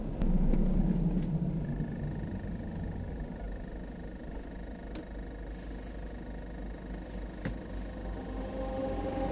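A 2012 Peugeot 308 SW diesel with a steady, high-pitched squeak that sets in about two seconds in and holds while the car stands at idle, over the low engine rumble. The owner traces the squeak, apparently, to a plastic air deflector in the front left wheel arch.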